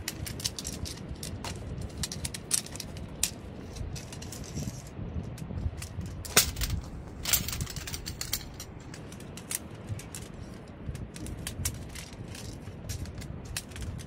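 Metal tent poles clicking and rattling as their sections are handled and fitted together: a run of sharp clicks, with two louder clacks about six and seven seconds in. Under them is a steady low rumble of wind and surf.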